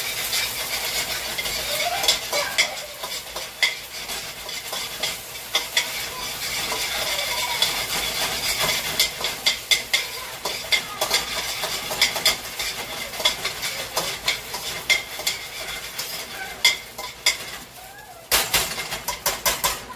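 Eggs frying in hot oil in a pan while being stirred: a steady sizzle with frequent clicks and scrapes of a utensil against the pan, and a few louder clatters near the end.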